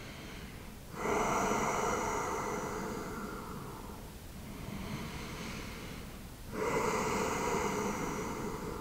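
A man breathing slowly and deeply through a held stretch: two long, audible breaths, each starting abruptly and tailing off over a few seconds, one about a second in and one about six and a half seconds in, with a quieter breath between them.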